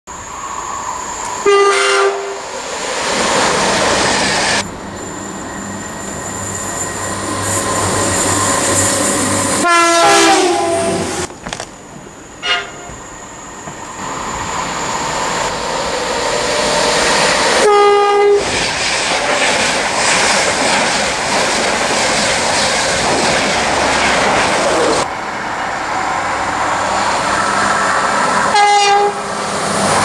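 A series of British passenger trains passing at speed through stations, several sounding their horns in short blasts, some of them two-tone: about two seconds in, around ten seconds, briefly just after, near eighteen seconds and again near the end. Under the horns runs the steady rush and rumble of trains passing close by.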